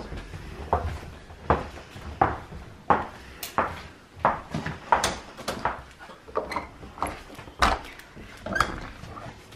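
Footsteps on a wooden floor, sharp knocks a little more than one a second, then a glazed door being opened near the end.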